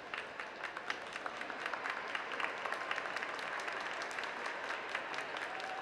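Audience applauding, the clapping growing denser and a little louder over the first couple of seconds.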